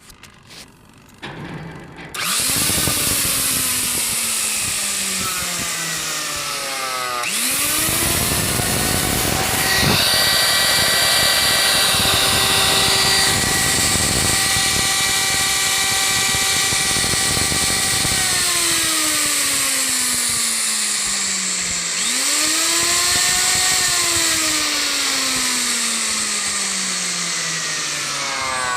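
Electric mixer-grinder motor started three times. Each time it spins up with a rising whine, holds a loud high running note, then sags in pitch as it slows.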